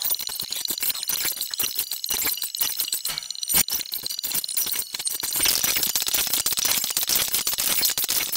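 Rapid, dense jingling and rattling clicks over a steady high tone. About five seconds in the tone fades and the rattle thickens into a more even hiss.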